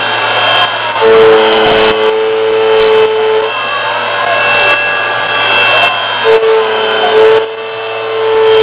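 Homemade high-speed milling head on a CNC-converted Fervi T044 mill, its 14 mm four-flute end mill cutting aluminium 2 mm deep at a 2200 mm/min feed. A loud steady tone rings while the cutter is in the metal, from about a second in until about three and a half seconds, and again from about six seconds on. Gliding whines rise and fall between the cuts over a constant machine hum.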